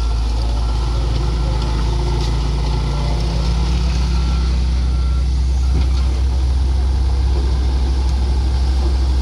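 Diesel engines of road-works machinery, a backhoe loader and a road roller, running with a steady low rumble. A reversing alarm beeps over it about twice a second, stopping about halfway through.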